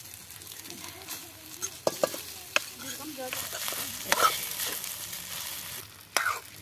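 Long steel ladle stirring and scraping cooked rice into fried chicken masala in a steel kadai, with a light sizzle from the hot pan. The ladle clinks sharply against the metal about two seconds in, and the scraping is loudest around four seconds.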